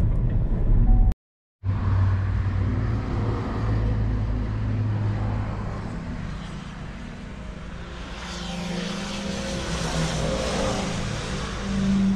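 Road vehicle noise: a steady low rumble with tyre hiss, broken by a split second of silence just after a second in. In the second half the hiss swells and fades again, like a vehicle passing.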